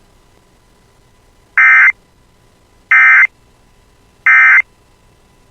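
Emergency Alert System end-of-message signal: three short bursts of SAME digital data tones, a little over a second apart, marking the end of the alert.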